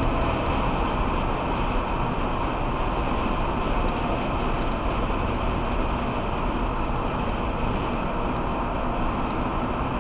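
Steady whooshing wind noise inside a Ford SUV's closed cabin at highway speed, about 110 km/h, picked up by a dash cam's built-in microphone.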